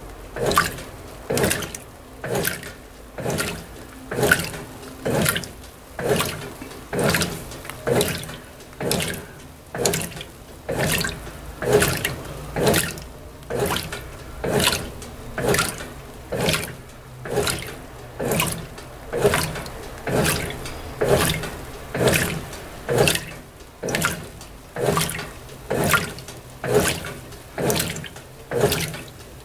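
Brastemp BWT12 top-loading washing machine agitating a load of delicates: water and clothes sloshing in regular strokes, about one a second.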